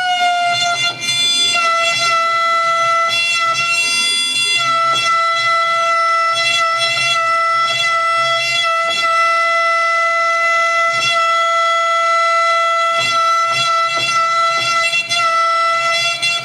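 High-frequency CNC engraving spindle whining at a steady high pitch while a 3 mm engraving cutter cuts a stamp, with faint scratchy cutting noise. The pitch sags slightly as the cutter starts cutting and again about four and a half seconds in.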